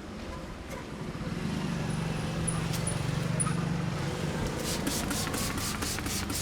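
Street traffic: a vehicle's low engine hum swells and fades through the middle. About two-thirds in, brisk rhythmic rubbing starts, roughly three strokes a second, from hands massaging the head.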